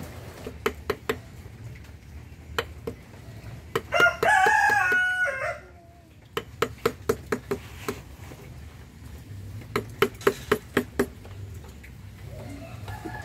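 Wooden mallet tapping a carving chisel into wood, sharp knocks coming in quick clusters. About four seconds in, a rooster crows once for about a second and a half, the loudest sound here.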